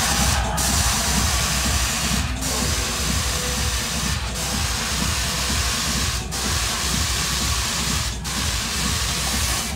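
Electronic dance music over a club sound system: a steady low bass under a loud hissing noise that breaks off briefly about every two seconds and cuts out right at the end.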